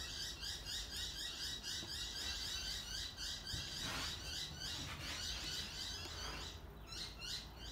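Faint, fast high-pitched chirping, about four or five chirps a second without a break, over a low steady hum.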